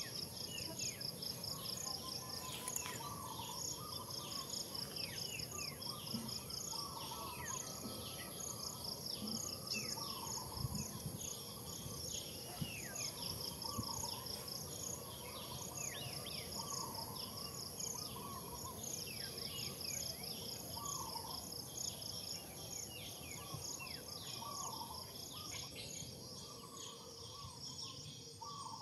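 Outdoor insect and bird ambience: a steady high insect whine with pulsed trilling above it, many short falling bird chirps, and a lower warbling call that repeats every couple of seconds.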